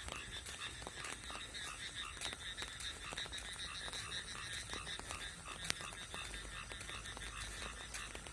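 Frogs croaking in a steady rhythmic chorus, about four pulsed calls a second, with scattered sharp ticks of raindrops in the night rain.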